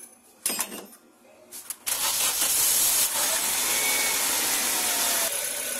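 A few light clicks, then about two seconds in a Nissan Sentra's engine is heard running, starting suddenly: a steady, loud, hissing engine-bay noise.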